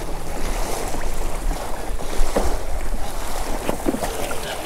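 Water rushing and splashing along the hull of a Hobie Mirage Lynx pedal kayak under way at speed, with wind buffeting the microphone.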